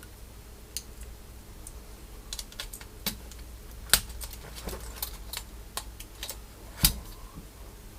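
Plastic clicks and snaps of Cherry MX key switches being handled and pressed into a keyboard plate, irregular, with two louder snaps about four and seven seconds in.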